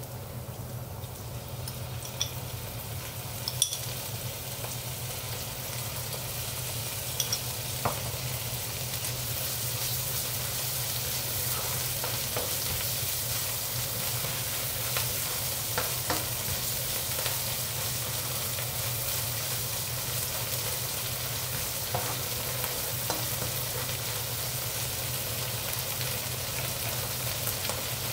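Shrimp paste (alamang) sizzling as it fries with onions in a nonstick wok, stirred with a spatula that ticks against the pan now and then. The sizzle grows a little louder after about eight seconds.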